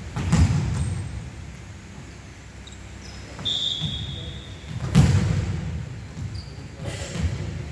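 Volleyball struck twice, about five seconds apart: each hit is a sharp slap that echoes around a large indoor sports hall. A brief high squeak comes between the two hits.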